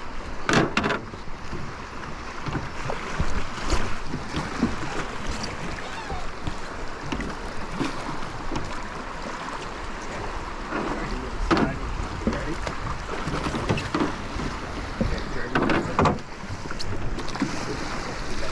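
River water rushing past a drifting boat, with wind buffeting the microphone and several short sharp sounds scattered through.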